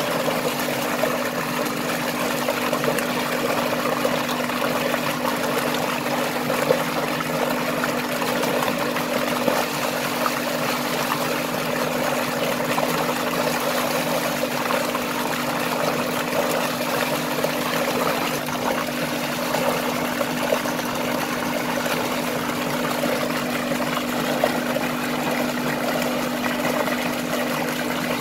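Heavy jet of water gushing from a pipe into a concrete tank, splashing steadily, with hands rinsing clay bowls in the stream. A steady hum runs underneath.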